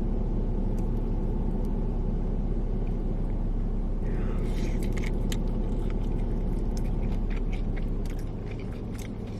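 A steady low rumble throughout. From about four seconds in, a crunchy Flamin' Hot Cheetos-breaded chicken wing is bitten and chewed, giving a run of short crackling crunches.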